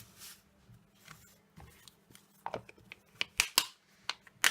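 Craft supplies handled on a tabletop: a faint rubbing, then a quick run of sharp clicks and light taps in the second half.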